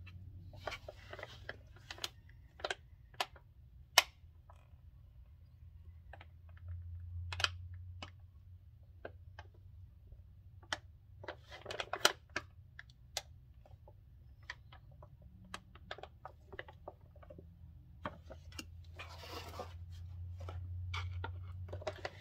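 Flexible plastic gear-oil pouch crackling and clicking as gloved hands squeeze and roll it to empty it into the rear differential's fill hole: irregular sharp clicks with a few longer crinkling stretches. A steady low hum runs underneath.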